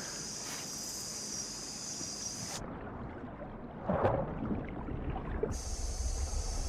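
Night insect chorus of crickets: a steady high-pitched trilling that cuts out suddenly for about three seconds mid-way, then returns. A short noise breaks in about four seconds in, and a low rumble of water and wind rises near the end.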